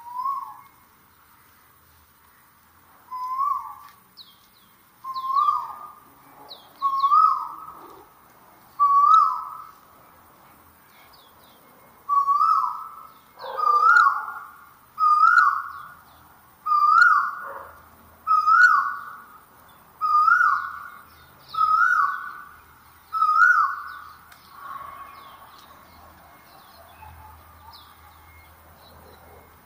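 A bird calling loudly and over and over: a short rising note, about thirteen times at intervals of one and a half to two seconds, coming a little quicker as it goes, then fading away over the last few seconds.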